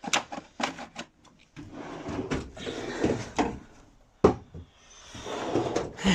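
Metal tool chest drawers sliding open and shut, with a few clicks and clatter of the contents, and one sharp knock about four seconds in.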